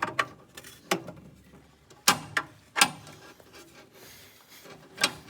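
Irregular sharp clicks and knocks of small hard furnace parts being handled and fitted: about six strikes, the loudest about two and three seconds in.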